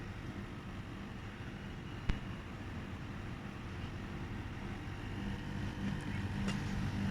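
Midea air conditioner running with a steady low hum, with a single sharp click about two seconds in.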